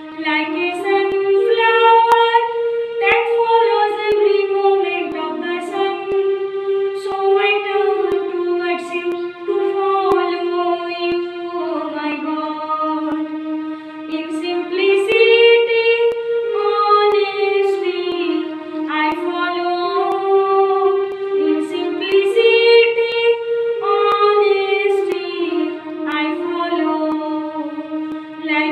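A woman singing a slow song solo, without accompaniment, holding long notes that glide up and down.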